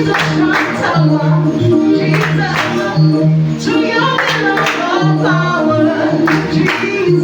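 Praise team's gospel worship music: voices singing over sustained low instrumental notes and a steady percussion beat.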